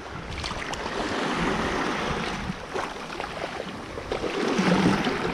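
Small waves washing in and out over a shallow sand and pebble shore, a steady rushing, fizzing wash of water.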